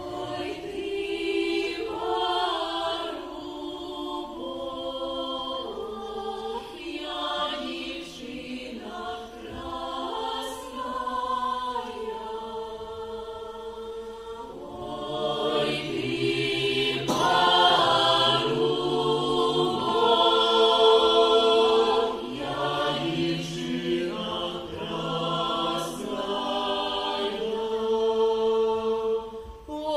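A group of women's voices singing a Ukrainian folk song together, with long held notes.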